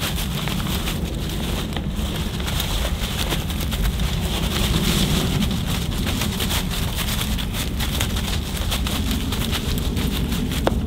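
Wind rumbling on the microphone, with dry leaves rustling and crackling underfoot and gear being handled and unstrapped from a loaded cart. There is a single sharp click near the end.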